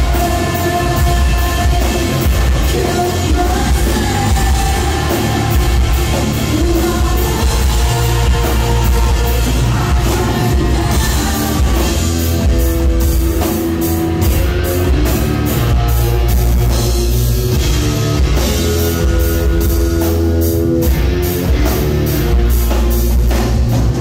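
Rock band playing live: electric guitars, bass and drum kit, with a male vocalist singing.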